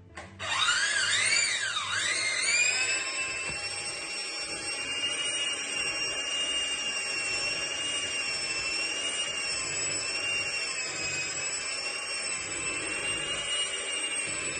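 Electric mixer beating butter-cookie dough. Its motor whines up to speed about half a second in, wavers in pitch for a couple of seconds, then runs at a steady high whine.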